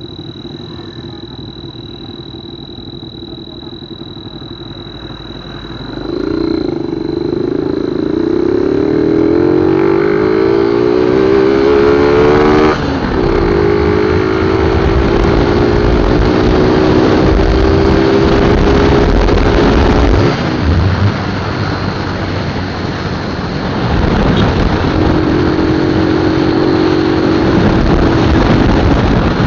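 Yamaha Verza 150 motorcycle engine fitted with an exhaust turbo whistle, idling and then revved about six seconds in. The whistle comes in loud and rises in pitch with the revs, is held steady, drops back around twenty seconds in and sounds again near the end.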